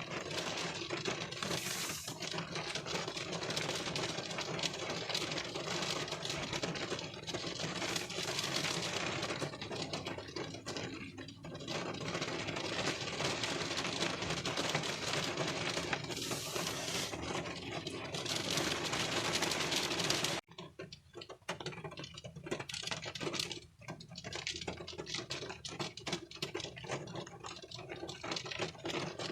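Rain pattering on a car windshield, heard from inside the car as a dense spray of fine drop ticks. About twenty seconds in it suddenly thins to a quieter, sparser patter of separate drops.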